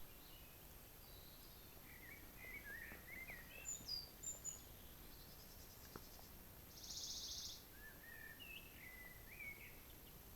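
Wild birds singing in a forest: short, chirpy warbling phrases, with a brief buzzy trill a little past the middle that is the loudest sound.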